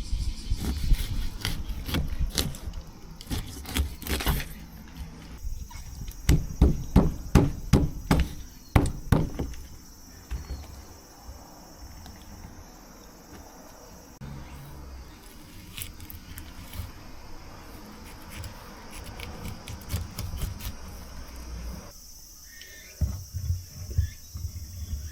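A series of knocks and clatter from things being handled, dense for about the first ten seconds, then fading, over a steady high chirring of insects that grows stronger near the end, where a few more knocks come.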